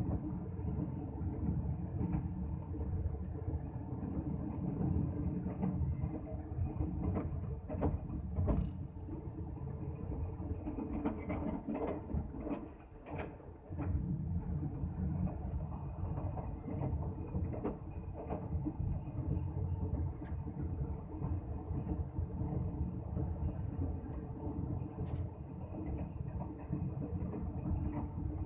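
Pakistan Railways Musa Pak Express passenger train running at speed, heard from inside the carriage: a steady low rumble of wheels on the track with scattered clicks and knocks, dipping briefly about thirteen seconds in.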